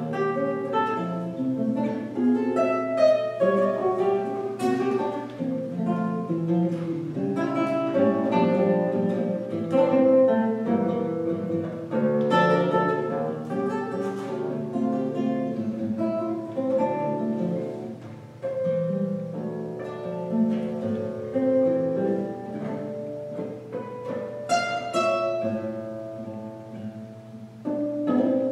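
Solo classical guitar played fingerstyle: a plucked melody over ringing chords, with a few sharper chord attacks shortly before the end and softer passages between.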